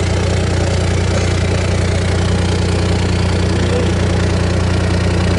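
Tractor engine idling steadily, with a low, even hum.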